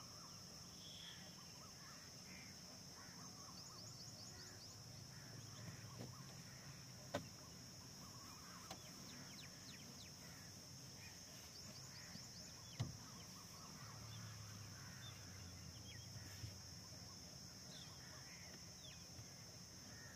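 Faint savanna ambience: scattered distant bird calls over a steady high-pitched insect drone, with two sharp clicks about seven and thirteen seconds in.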